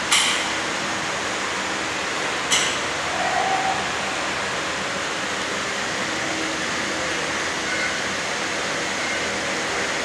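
Two sharp metallic clicks, one right at the start and one about two and a half seconds in, as a hand tool knocks against a ceiling fan motor's copper-wound stator and its metal housing. They sit over a steady whooshing background noise.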